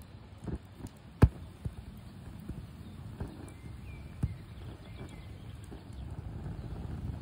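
Campfire embers and a tin-can alcohol stove burning: scattered sharp pops and crackles, the loudest about a second in, over a low rumble of flame that builds near the end as the stove's ring of side jets burns fully.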